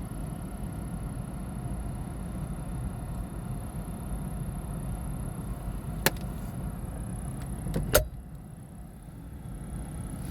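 Failing fan motor in a Chevy Trax running with a steady low hum, giving two sharp chirps about six and eight seconds in. After the second chirp the hum drops.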